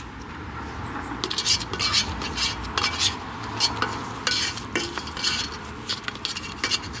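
Repotting sounds: soil and a plant pot being handled, a busy run of scrapes, rustles and clicks that starts about a second in.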